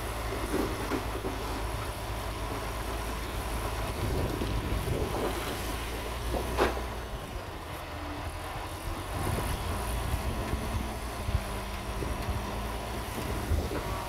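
Heavy dump truck's diesel engine running steadily while its tipping body is raised and the soil load slides out. A single sharp knock about six and a half seconds in.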